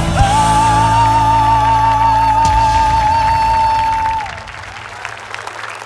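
A male singer holding one long note with a wavering vibrato over a sustained band chord; the note falls off and ends about four seconds in, and audience applause follows.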